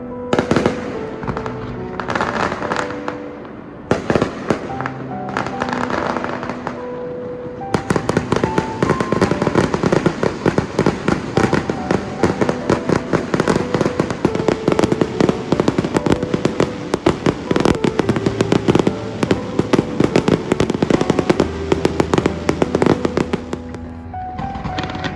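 Aerial fireworks exploding: a few separate bursts in the first seven seconds, then from about eight seconds a dense, rapid barrage of bangs and crackles for around sixteen seconds, easing off near the end.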